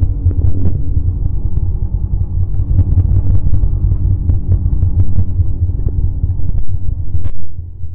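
Snowmobile running along a trail: a loud, steady low rumble with faint engine tones over it and scattered sharp knocks and clicks. The sound eases off about seven and a half seconds in.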